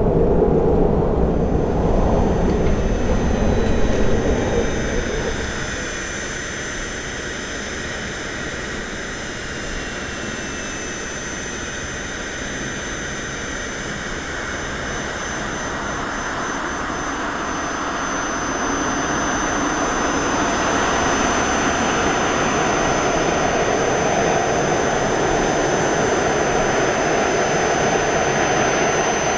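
Jet aircraft engines at takeoff. A loud roar fades over the first few seconds with a faint falling whine. A steady high whine follows, and the roar builds up again through the second half.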